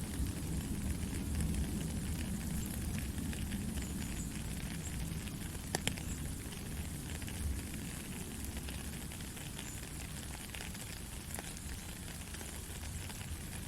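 Steady rain falling, with scattered drops ticking among the hiss and a sharper pair of taps about six seconds in.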